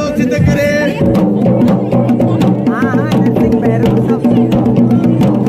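Garhwali dhol and damau drums playing a steady rhythm of strokes over other music with held tones.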